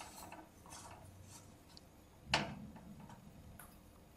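A few light clicks of metal screws and a screwdriver being handled against a steel computer case and motherboard, with one sharper click a little over two seconds in.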